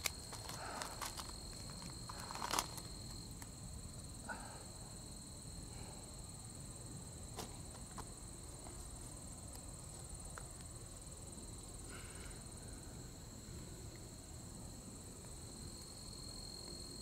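Insects chirring steadily in dry grass, a continuous high-pitched drone, with a few brief rustles and clicks in the first few seconds.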